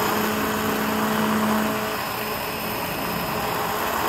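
Immersion blender running steadily with its blade head down in a pot of potato soup, puréeing the cooked potatoes and milk.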